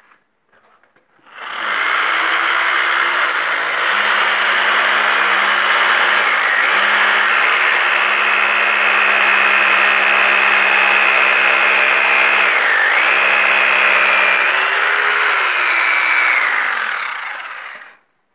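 Corded angle grinder grinding the concrete floor-to-wall joint of a pool. It starts about a second and a half in and runs with a steady high motor whine, dips briefly in pitch as it bites under load, then winds down and stops near the end.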